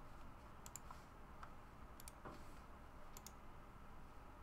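Near silence: room tone with three faint, short double clicks spread about a second apart.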